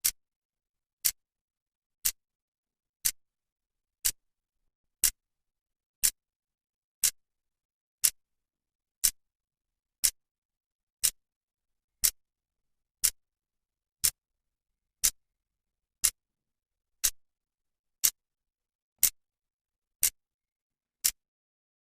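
Clock second hand ticking, one sharp click a second at a perfectly even pace, with silence between the ticks.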